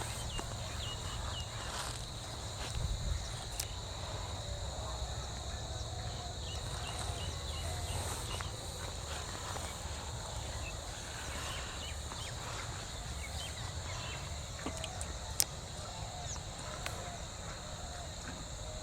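Rural outdoor ambience: a steady high insect drone with faint bird chirps over a low rumble, and a few sharp clicks, the loudest about fifteen seconds in.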